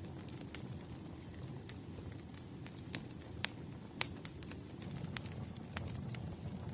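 Burning wood logs crackling: irregular sharp pops over a steady low rumble of the fire, with the two loudest pops about three and a half and four seconds in.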